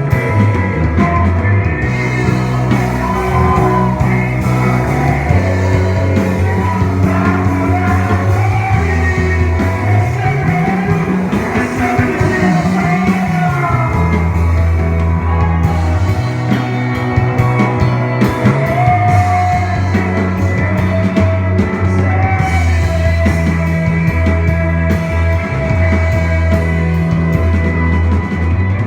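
Worship band playing rock-style music, with held bass notes that slide up and back down about ten seconds in.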